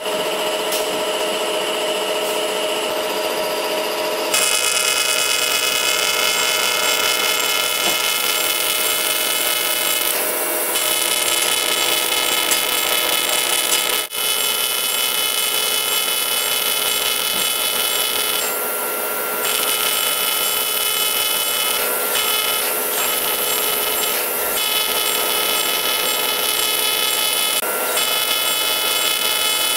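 Surgical equipment running steadily during laser soft-palate surgery on a brachycephalic dog. It gives a multi-tone machine whine over a hiss, and the high part drops out briefly a few times.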